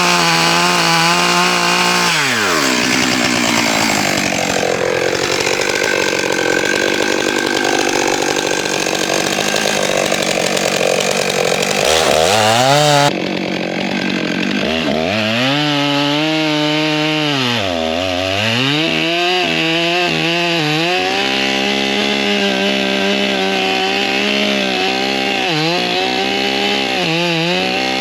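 Stihl 661 Magnum chainsaw cutting through an oak log. The engine runs at high revs, its pitch drops sharply as the bar is loaded into the wood, and it keeps cutting under load before revving back up. Later it bogs down briefly once more and recovers, with a few small dips near the end.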